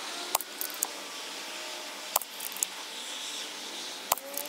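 Three moderated shots from a Brocock Atomic XR PCP air rifle with a short single-stack moderator, about two seconds apart. Each is a sharp crack followed by a few fainter clicks. The shots are the middle three of a five-shot group.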